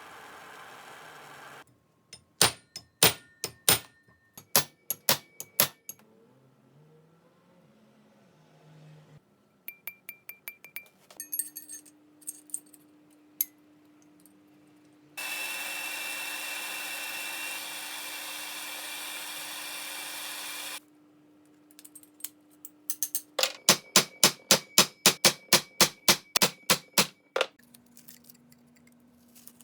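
Hand work on the old pipe wrench's steel parts: series of sharp metallic clicks and taps, with a fast run of clicks near the end, and a steady hiss for about six seconds midway.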